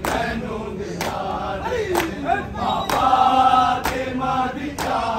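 A group of men chanting a Muharram noha in unison over rhythmic matam, hands striking chests together about once a second.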